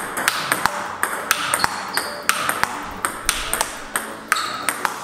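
Table tennis rally: the celluloid-type ball clicking sharply off the bats and bouncing on the table, often in close pairs of a hit and a bounce, several per second. One bat is faced with Speedy P.O. high-tension short-pips rubber.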